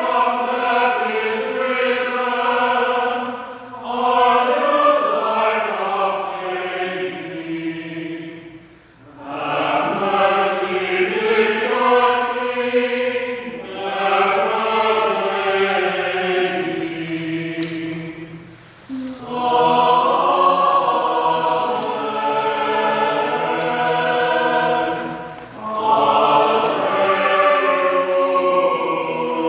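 A church choir singing in phrases of several seconds each, with short breaks between the phrases.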